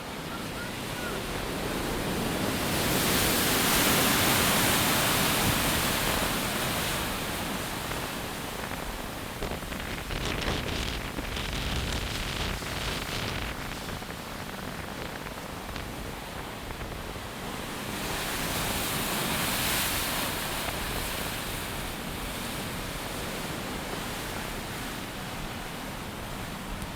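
Strong storm wind blowing across the microphone over breaking ocean surf: a steady rushing that swells loudest a few seconds in and again about two-thirds of the way through.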